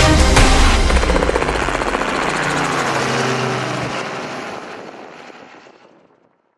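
Light helicopter flying off, its rotor chopping quickly and fading away, over the last notes of background music. The music ends about four seconds in and the whole sound fades out shortly after.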